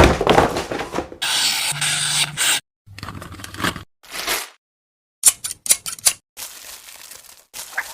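Phone packaging being opened and handled: scraping, rubbing and tearing sounds in short bursts that cut off suddenly, with a quick run of sharp clicks about five seconds in.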